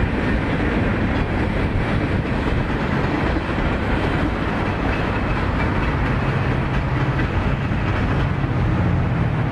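Freight train rolling past close by: a steady, loud rumble of rail cars, with a low hum that rises slightly in pitch in the last few seconds.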